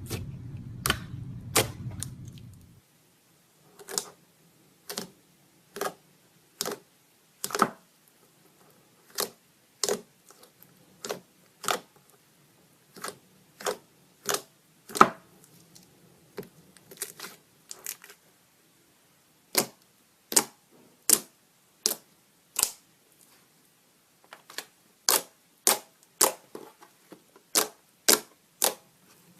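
Slime being squeezed and pressed by hand, giving a series of sharp pops and clicks as trapped air bursts, roughly one a second and unevenly spaced. A low hum stops about two and a half seconds in.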